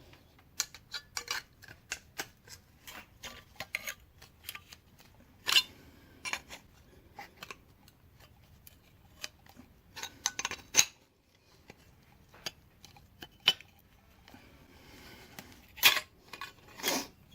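Tin snips cutting through sheet metal: an irregular run of short metallic snips and clicks, with a few louder ones about five seconds in, about ten seconds in and near the end.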